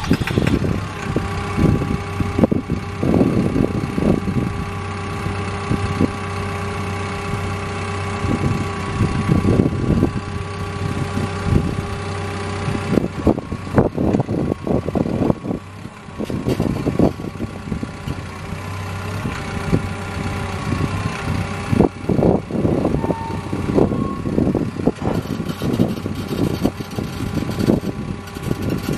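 Caterpillar D5K dozer's four-cylinder diesel engine running at low speed just after start-up, a steady hum with irregular louder surges as the blade is raised and tilted on its hydraulics during the start-up cycle of the hydraulic system.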